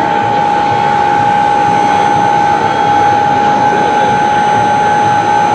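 Small electric motor in a radio-controlled model truck or construction machine running at constant speed, giving a steady high-pitched whine over a loud, even noise.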